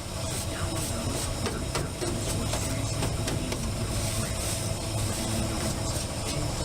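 Small carbureted gasoline engine running steadily at an even speed, with faint clicks and clatter over it.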